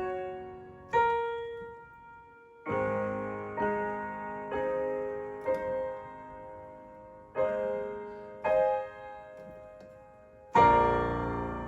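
Solo piano playing a slow passage of separate chords, each struck and left to ring and fade, with a loud, full chord near the end.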